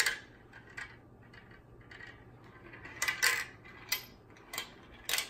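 Marbles rolling and clicking along a plastic marble-run track and dropping into a small metal bowl. A string of separate clicks and clinks, with the loudest cluster about three seconds in.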